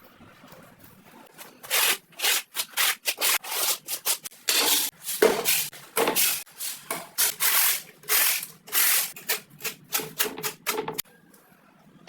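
Rapid, irregular back-and-forth rubbing strokes of hand work on a surface, about two a second. They start about two seconds in and stop about a second before the end.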